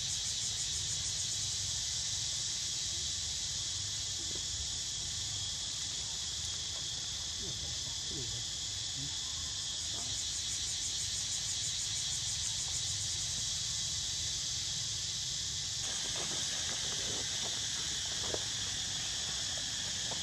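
Steady, dense chorus of insects trilling, with a low rumble underneath and a few faint short squeaks now and then.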